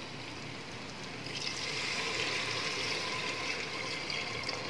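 Water poured in a steady stream from a vessel into a pressure cooker of fried mutton masala, starting about a second in.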